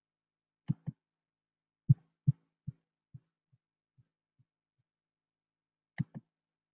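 Computer mouse clicking: dull clicks, mostly in quick pairs, with a few fainter ticks in the middle and another pair near the end.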